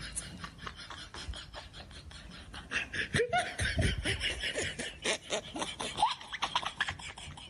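People laughing in quick, breathy pulses, growing louder from about three seconds in.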